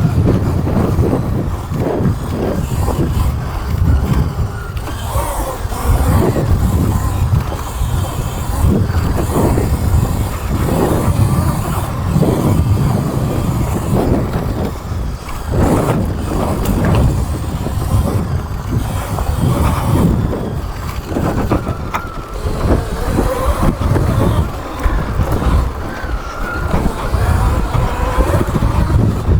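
A Sur Ron electric dirt bike ridden along a dirt trail: heavy wind buffeting on the microphone and tyre and ride noise that surges unevenly, with a faint high motor whine coming and going.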